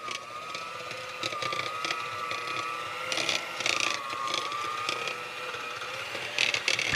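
Electric mixer running steadily in cake batter, its motor whine wavering slightly in pitch as the load changes, with scattered clicks and scrapes of the beaters against the bowl.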